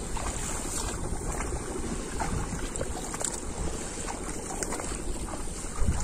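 Wind buffeting the microphone, with a stronger gust near the end, over light splashing of shallow water as rice seedlings are pushed into the flooded mud.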